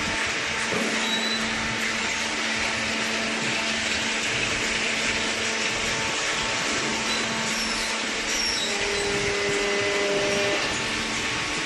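A machine running with a steady whirring hiss and a few faint held hums.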